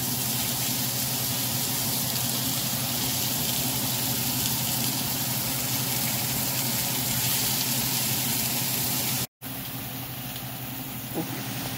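Salmon cubes and onions sizzling in oil in a nonstick frying pan, a steady hiss over a low hum. About nine seconds in the sound cuts briefly and then resumes quieter.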